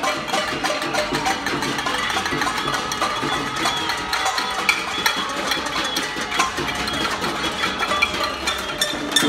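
Many people banging on metal pots and pans at once, a dense, unbroken clatter of overlapping clangs with ringing metallic tones: a casserolade, pot-banging in protest.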